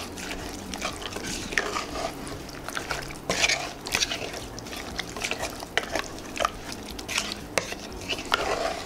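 Wooden spoon stirring a wet mix of chicken, tomatoes and spices in a pressure cooker pot, scraping and knocking irregularly against the pot's sides.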